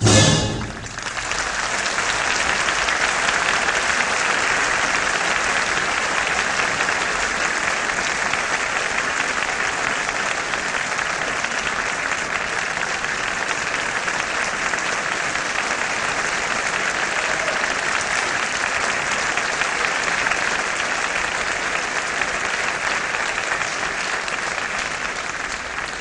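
A brief loud final orchestral chord at the very start, then a theatre audience applauding steadily in a long, even ovation that begins to fade near the end.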